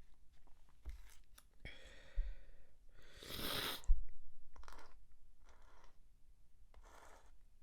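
A person's breathy gasps build up to a stifled sneeze, a sharp sudden burst a little under four seconds in, followed by a few fainter breaths.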